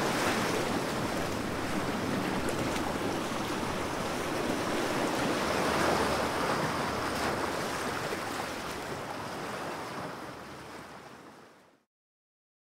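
Wind buffeting the microphone over lapping water, a steady rushing noise that fades away near the end into silence.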